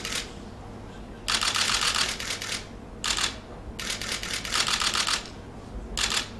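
Repeated bursts of rapid clicking, about five of them, the longest lasting about a second and a half, with a low hum between them.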